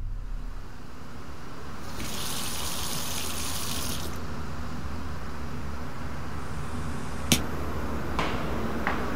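Kitchen tap running for about two seconds. Later comes one sharp click, then a few lighter clicks and knocks near the end, over a steady low hum.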